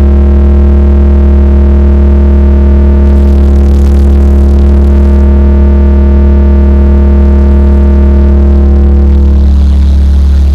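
A single very loud, deep synthesizer bass tone held steady with no break, blasted through a large carnival sound system as part of its jingle.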